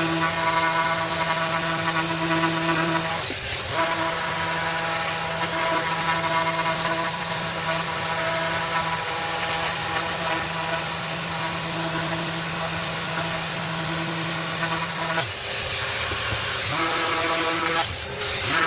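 A 5 mm stroke random orbital sander running steadily against a wooden board, with a steady motor hum. Its sound breaks briefly about three seconds in, again for over a second near the end, and once more just before the end.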